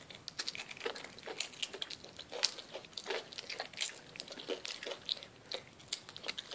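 A child chewing and biting chocolate close to the microphone: small irregular crunches and mouth clicks.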